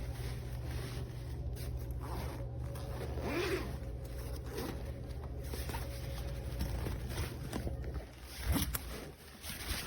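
Zippers on a laptop backpack being pulled, with the bag's fabric and the things in its pockets rustling as it is handled.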